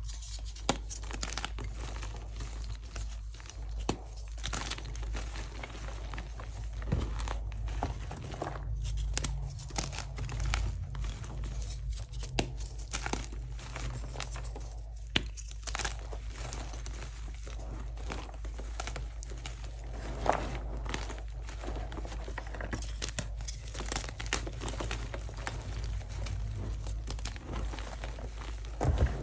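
Pink-dyed gym chalk blocks being crushed and crumbled by hand: soft and crunchy, a continuous crackly crumbling with many small clicks and a few sharper snaps as chunks break apart.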